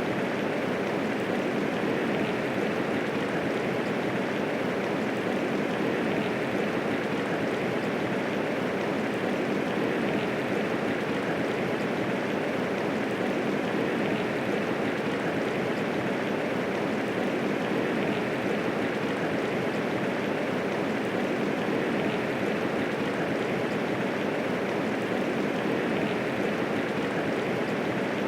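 Steady medium rainfall: an even, unbroken hiss of rain falling.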